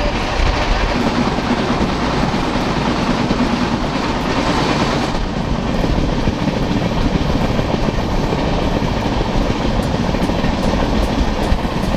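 Passenger express train running at speed: a steady noise of wheels on the rails, heard from a window seat inside the coach.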